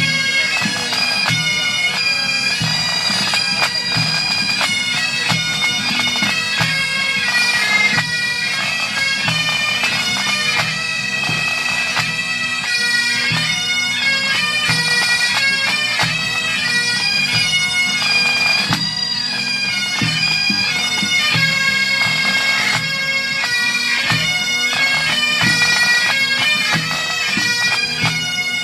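Pipe band playing: Great Highland bagpipes sound a melody over their steady drones, with a bass drum and drums beating time.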